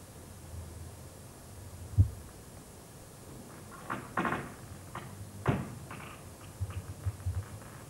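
Scattered knocks and thumps: one heavy thump about two seconds in, two sharper knocks a few seconds later, and a quick run of light thumps near the end.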